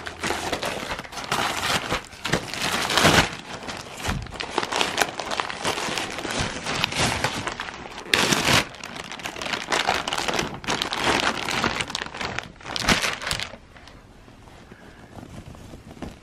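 Plastic packaging crinkling and crackling in the hands as a poly mailer and a zip-sealed plastic bag are pulled open, in irregular bursts with a few sharper snaps; it dies down to quiet rustling near the end.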